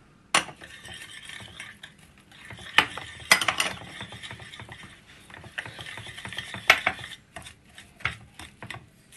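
Small wire whisk beating an egg-and-spice marinade in a ceramic bowl: a fast, uneven run of clicks and scrapes as the wires strike the bowl, with a few sharper knocks.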